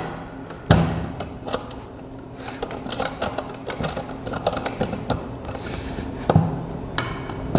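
Irregular small clicks and knocks from the burnout furnace's door being worked on its hinges, with a sharper knock a little under a second in and another near the end.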